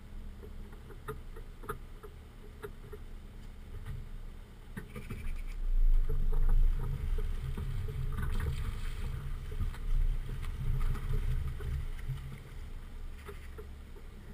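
Car rolling slowly along a rough, stony and muddy unpaved lane, heard from a microphone on the car's body: a low, uneven rumble from the tyres and wind buffeting, with scattered small clicks of grit under the tyres in the first few seconds. It grows louder about five seconds in.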